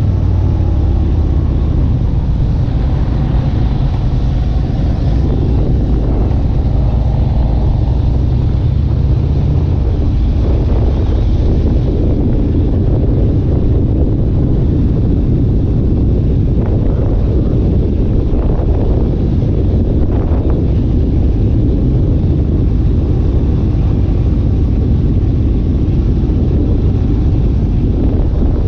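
A vehicle running steadily with a loud, constant low rumble; a faint engine note shifts in pitch in the first few seconds.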